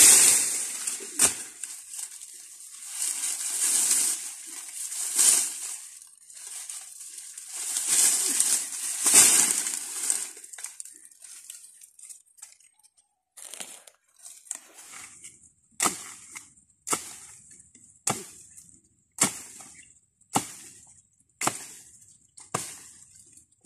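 Dry brush and dead banana leaves rustling and crunching as someone pushes through thick undergrowth. In the second half come about eight sharp, evenly spaced chops, a little over a second apart, of a machete hacking at the base of a banana plant.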